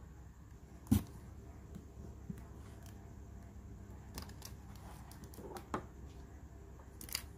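Quiet handling of small hard objects on a table: one sharp knock about a second in, then a few faint clicks.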